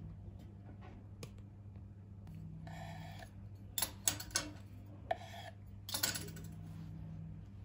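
A metal fork clicking and scraping against a wooden cutting board several times as it works at a sesame-crusted omelette. The loudest clicks come about four seconds in and just before six seconds, over a low steady hum.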